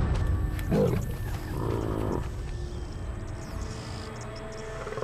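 Lion growling: two harsh growls in the first two seconds, the second longer, over a low steady rumble.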